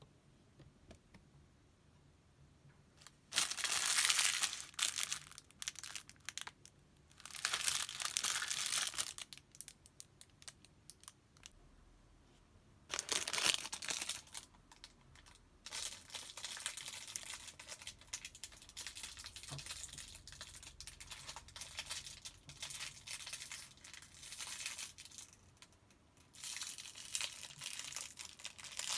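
Packaging, likely plastic wrapping, crinkled and rustled close to the microphone. It comes in several separate bursts, then a longer stretch of quicker crackly crinkling, and a last burst near the end.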